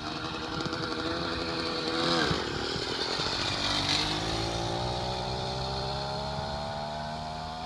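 Small two-stroke bicycle kit engine on a motorized chopper bicycle running. Its note drops sharply about two seconds in, then climbs steadily through the rest.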